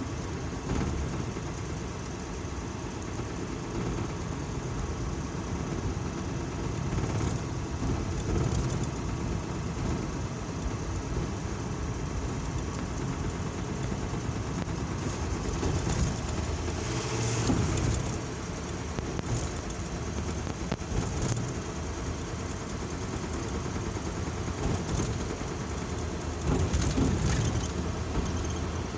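A car driving, heard from inside the cabin with the sunroof open: steady engine and road noise mixed with air rushing through the roof opening, swelling a little now and then.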